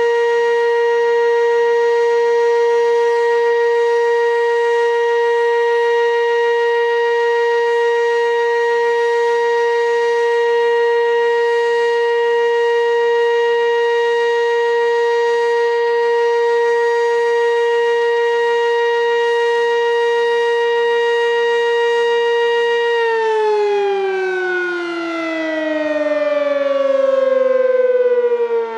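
Sentry 15V2T dual-tone warning siren sounding a steady, loud tone at full speed; about 23 seconds in it winds down, its pitch falling steadily as the test ends.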